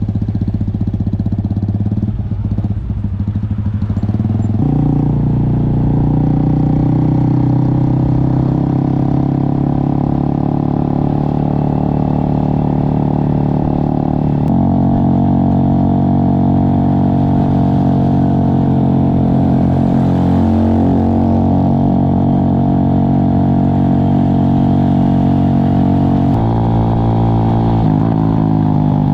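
Motorcycle engine running steadily under way. Its note shifts in distinct steps a few times, about five seconds in, midway and near the end.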